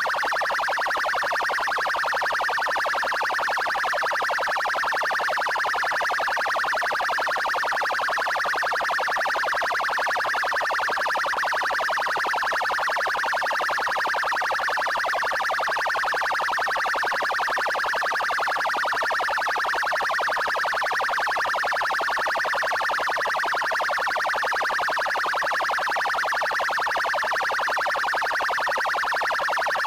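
Police car siren sounding its 'trail' tone: a fast, unbroken warble at an even level.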